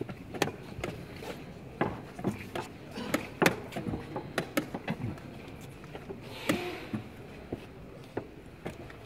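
Irregular wooden clacks of chess pieces being set down on wooden boards and chess clock buttons being pressed, from several blitz games at once.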